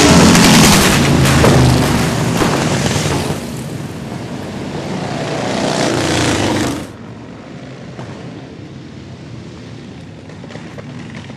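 Vintage racing motorcycles passing close by at speed, the engine note falling in pitch as the first one goes by, then a second bike rising to a loud pass about six seconds in. The sound cuts off abruptly to a much quieter background near the end.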